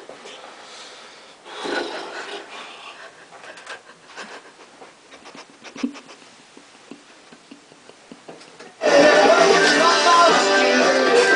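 A single snore about two seconds in, followed by faint clicks and rustles. About nine seconds in, loud music cuts in abruptly.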